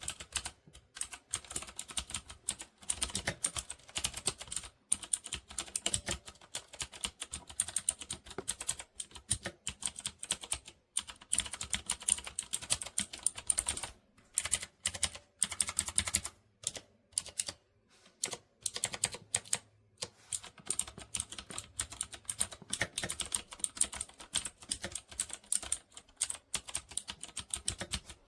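Typing on a MageGee 75% mechanical keyboard with red linear switches: rapid, continuous key clicks with a few short pauses.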